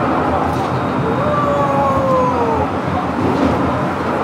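Penang Hill funicular car running down its rails through a tunnel, with a steady rumble. About a second in, a drawn-out squeal is held for a second or so and then dips slightly in pitch.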